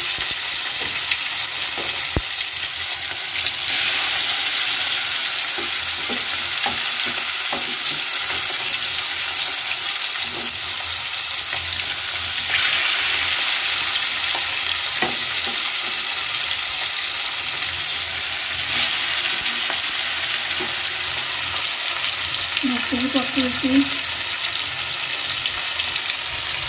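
Fish pieces deep-frying in hot oil in a kadai: a steady, loud sizzle that swells sharply three times as more pieces are slipped into the oil, with a few light knocks.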